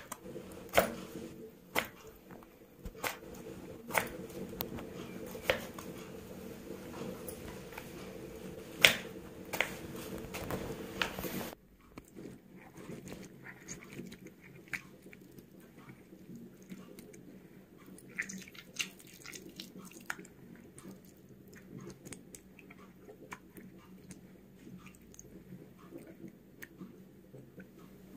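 A knife slicing through tomatoes on a wooden cutting board, the blade knocking sharply on the board every second or so. About eleven seconds in this gives way to fainter wet rubbing and small clicks of hands washing something in water in a clay pot.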